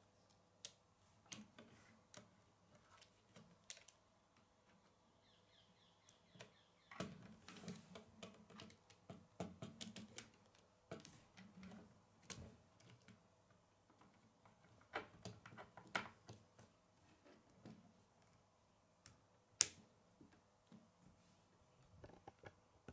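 Plastic K'nex rods and connectors clicking and snapping together as a model is assembled by hand, in irregular bursts of light clicks, with one sharper snap near the end.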